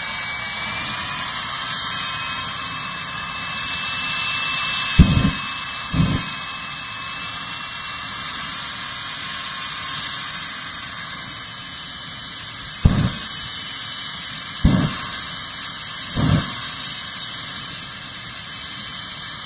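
Jet car's turbine engine idling at the start line with a steady high-pitched whine and hiss. Five short deep booms break through it, the loudest about five seconds in.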